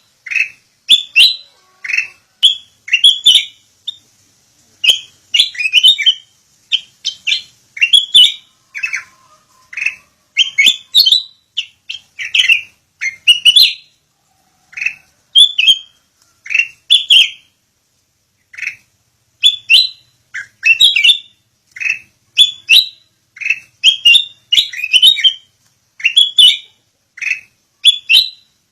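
Sooty-headed bulbul (kutilang) calling: bright short chirps in quick clusters of two to four notes, repeated with brief pauses.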